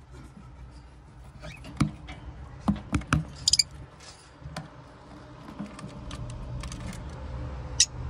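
Handling noise from a phone being moved around inside a wooden lovebird nest box: scattered knocks and clicks against the wood and straw, a cluster of them about three seconds in and a sharp click near the end, over a low steady hum.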